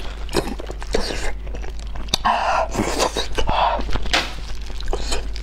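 Close-miked wet chewing and lip-smacking on braised pork knuckle, in irregular bursts, with squelches of the meat and skin being pulled apart by gloved hands. A steady low hum runs underneath.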